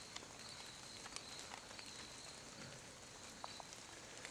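Faint woodland sound: scattered light crackles and ticks as white-tailed deer step through dry leaf litter, over a steady high-pitched drone.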